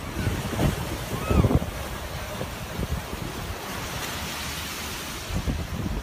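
Surf washing onto a rocky beach while gusty wind buffets the microphone with a low rumble. A short high call rises and falls about a second and a half in, and the rush of a wave swells near the middle.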